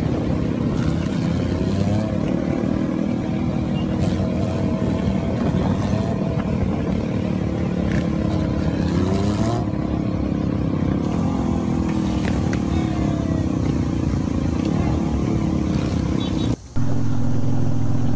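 A sport bike's engine running and revving through a long wheelie, with its pitch rising and falling. Just before the end the sound cuts off briefly and is replaced by another motorcycle engine running at a steady pitch at road speed.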